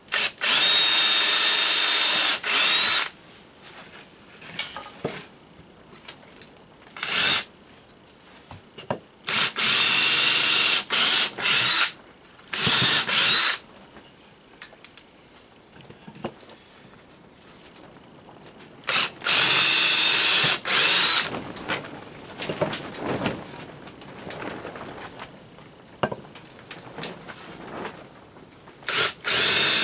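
Ryobi cordless drill boring pilot holes into wooden frame pieces, running in several bursts of two to four seconds, with short trigger blips and knocks of wood being handled between them.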